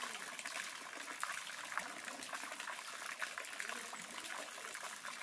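Steady trickling and splashing of water, with many small sharp splashes.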